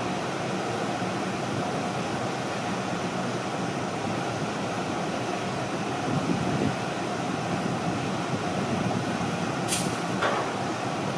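Steady running noise of a train, swelling slightly a couple of times, with a sharp click just before ten seconds in and a brief higher-pitched sound just after it.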